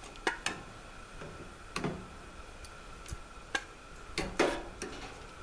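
A metal spoon clinking against an aluminum cooking pot and plate while stew is served out, with a handful of short, irregular clinks.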